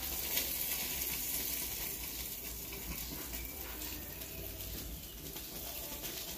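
Food sizzling steadily in a hot frying pan.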